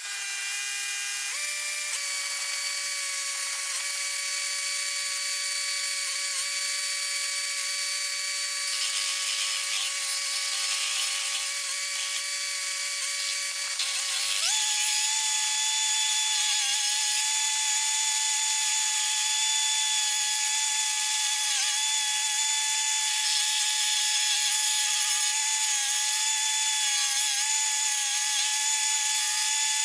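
Mini skid steer running a stump grinder attachment: a steady high-pitched mechanical whine. It steps up in pitch about a second in and again about halfway through, then holds at the higher speed.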